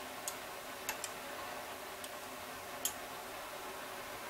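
Metal knife blade ticking against the inside of a glass mason jar filled with sauce as it is worked around to release air bubbles: a few light, scattered clicks, the clearest about three seconds in.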